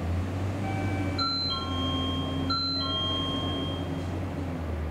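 An electronic two-note chime, falling from the higher note to the lower, sounds twice about a second and a half apart. Under it runs the steady low rumble of a departing oil-tank freight train.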